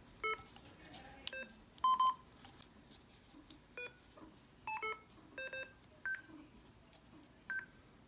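Short electronic key beeps from a Yaesu mobile transceiver as a frequency is keyed in on the MH-48 microphone's keypad. There are about ten beeps at uneven intervals and differing pitches, a sign that the mic's keypad is working through its new cable.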